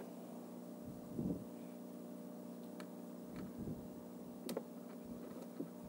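Battery wiring harness being handled: faint clicks and soft knocks of plastic plug connectors and wires being fitted, a few seconds apart, over a steady low hum.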